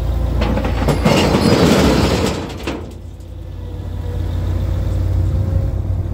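Avant compact articulated loader tipping a bucketload of debris into a steel skip: a loud rattling clatter of the load hitting the metal for about two seconds, starting half a second in. The loader's engine runs steadily underneath.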